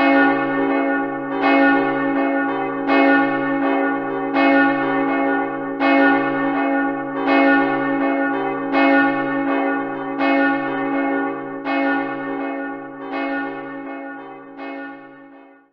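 Church bell tolling, struck about every one and a half seconds, its ringing carrying over between strikes, fading out near the end.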